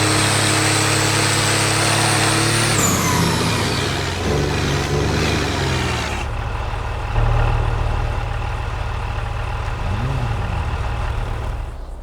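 Mercedes OM352 inline-six diesel engine held at high revs with a high whine, then dropping back to a steady idle about three seconds in. A brief blip of the throttle comes near the end before the engine sound dies away.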